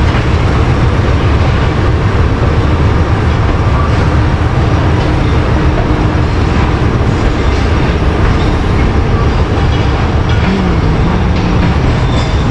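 Moving passenger train running along the track: a loud, steady rumble of wheels on rails with rushing noise, and a few sharper clacks over rail joints.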